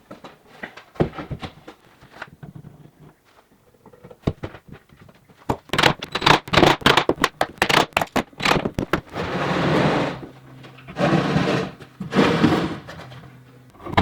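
Workshop noises from handling and fitting wooden cabinet parts: irregular knocks and thunks, then a quick run of sharp taps and clicks, then a few longer scraping sounds.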